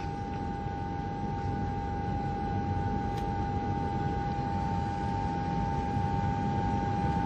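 Steady machine hum with a constant mid-pitched whine running through it, slowly growing a little louder.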